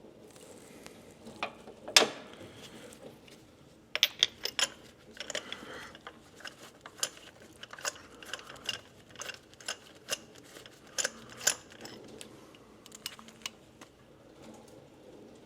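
Hand ratchet and socket clicking and clinking in irregular short runs, with one sharp metal knock about two seconds in, as spark plugs are worked loose.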